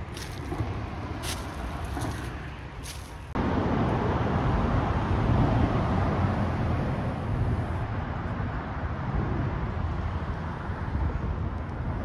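Highway traffic on the overpass overhead: a continuous rush of tyre and engine noise that jumps much louder about three seconds in, then swells and eases as vehicles pass. The quieter opening holds a few light clicks.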